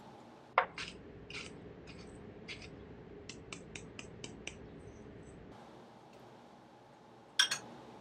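Kitchen utensil handling: a spoon tapping against a glass jar and bowl while scooping sugar, then a hand grinder twisted over a glass mixing bowl, giving a quick run of about six dry clicks. Near the end, a sharp double clink of metal on a dish.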